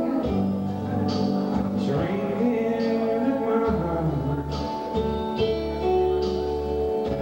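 Live country ballad: a man singing to his own acoustic guitar over a fuller backing accompaniment, the music going on without a break.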